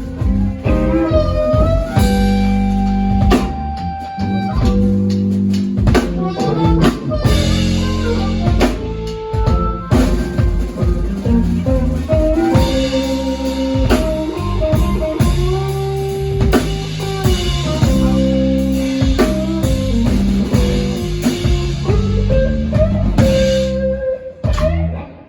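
Blues band playing an instrumental blues in C: a guitar plays lead lines with string bends over bass and a drum kit.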